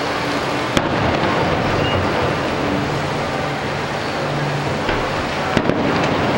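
Fireworks going off: a sharp bang about a second in and two quick bangs near the end, over a steady noisy wash.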